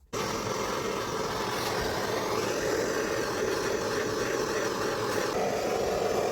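A power tool running steadily, switched on and then cut off abruptly after about seven seconds.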